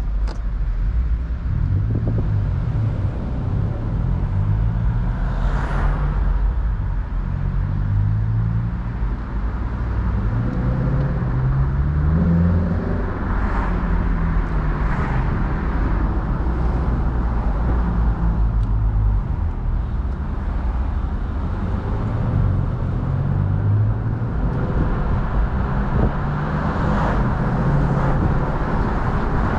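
Lexus LC500's naturally aspirated 5.0 V8 under light acceleration, its note climbing and then dropping back several times as the automatic gearbox upshifts. It is heard with the convertible roof open, over road and wind noise.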